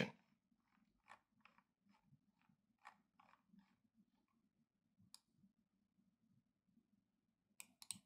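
Near silence: faint room hum with a run of soft clicks, roughly three a second, over the first few seconds, one more about five seconds in and a couple near the end.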